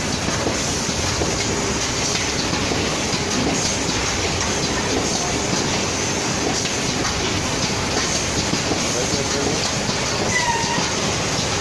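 Automatic cartoning machine running, a steady dense mechanical clatter with rapid clicking as it packs single glazed curd bars into cardboard cartons.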